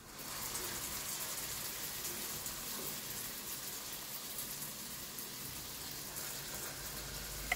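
Shallow oil sizzling steadily in a frying pan as stuffed dough rolls are laid in to fry.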